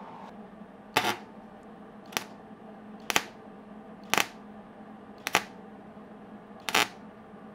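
Welder striking six short arcs, about one a second, each a brief crackle: quick tack welds closing a screw hole in the inner fender sheet metal. A steady low hum runs underneath.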